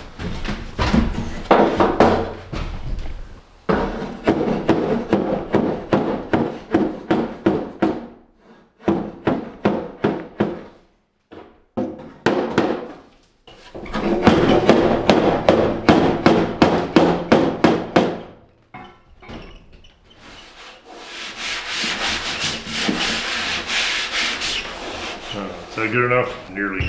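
Quick back-and-forth rubbing strokes on a sheet-metal car door, in runs of several seconds with short pauses between, then a steadier hissing rub near the end.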